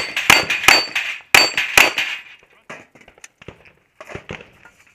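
Rapid pistol fire, about six shots in the first two seconds, each hit followed by the ringing of steel targets; then lighter clicks and knocks as the pistol is set down on the wooden table.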